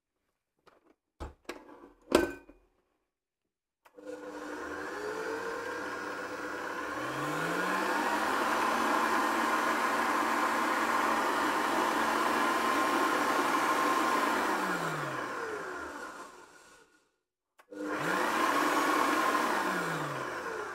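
A few clicks and a sharp knock, then the Kenwood Titanium Chef Baker XL stand mixer's motor starts, rising in pitch as it speeds up, runs steadily with the whisk spinning in the empty steel bowl, then winds down and stops. Near the end it runs once more briefly, rising and falling.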